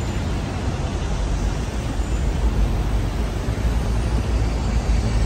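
Traffic noise on a busy city street: cars, taxis and buses running and passing slowly, heard as a steady low rumble under a constant hiss.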